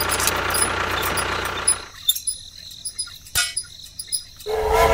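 A steady engine running noise that cuts off about two seconds in, leaving faint high chirps and clicks. Music begins at the very end.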